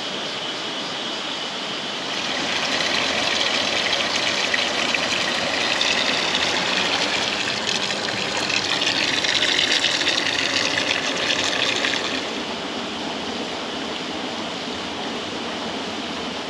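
Tap water pouring into a bathtub, splashing as the tub fills, loud and close for about ten seconds, over the steady rush of a river.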